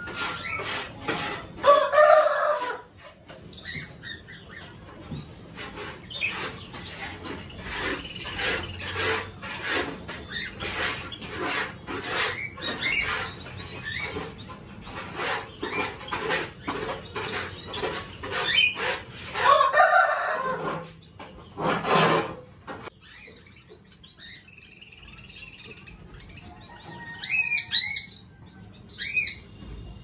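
Aviary of small finches and Java sparrows fluttering and calling: many quick flutters and clicks through the first twenty-odd seconds, two louder calls about two and twenty seconds in, and a few sharp high chirps near the end.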